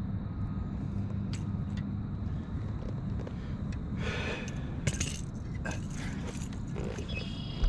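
Rattling and clicking of fishing tackle while a hooked largemouth bass is fought to the boat and landed, over a low steady rumble, with a short noisy burst about four seconds in.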